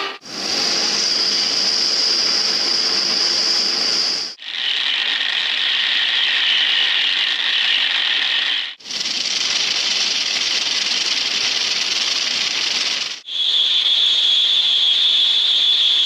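Spinning rolling bearings, heard as four separate recordings of about four seconds each, cut apart by brief gaps. Each is a steady, high-pitched rushing hiss, and each sits at a different pitch.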